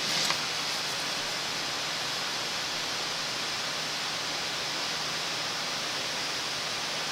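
Steady hiss with a faint low hum, the background noise of a drain inspection camera's recording. A couple of brief clicks come right at the start.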